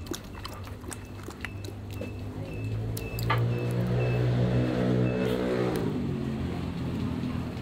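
A motor vehicle's engine running close by with a steady low hum. It swells about two seconds in, is loudest through the middle, then fades, as if passing the spot.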